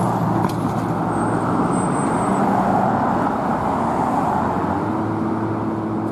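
Road vehicle engine and tyre noise, steady and fairly loud.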